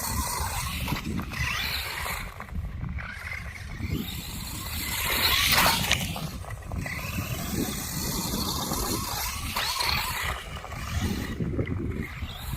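Electric 1/10 FTX Outlaw RC truck driving over rough ground: its motor whines up and down with the throttle, with a louder burst about five and a half seconds in. Wind rumbles on the microphone throughout.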